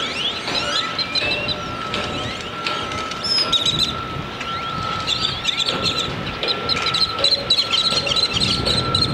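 Birds chirping and twittering in quick, repeated high notes, thickest in the second half, over a steady high-pitched whine and a low background rumble.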